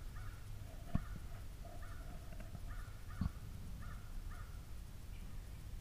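Crows cawing, a series of short calls repeated about every half second, with two sharp knocks about one and three seconds in.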